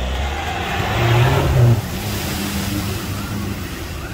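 A 4x4 pickup's engine accelerating as it drives into a flooded ford, swelling about a second in and dropping back to a steady run, with water splashing and rushing around the wheels.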